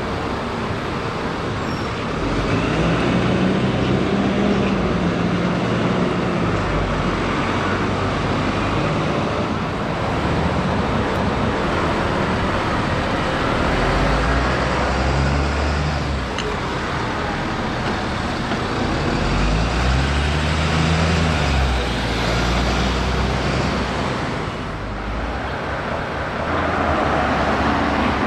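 Diesel double-decker buses pulling away and passing in road traffic, their engines revving up and easing off several times over a steady traffic noise.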